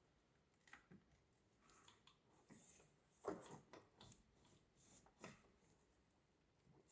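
Faint scraping and knocking of a turbo pipe being worked into place in an engine bay, with a few scattered clicks and a louder knock about three seconds in.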